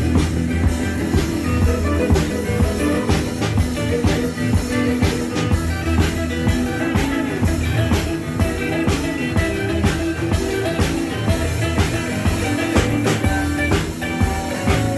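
Rock band playing an instrumental passage with no vocals: guitar over a drum kit keeping a steady beat.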